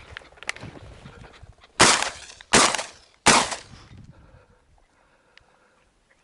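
Three shotgun shots fired in quick succession, about three quarters of a second apart, each loud and sharp with a short echoing tail.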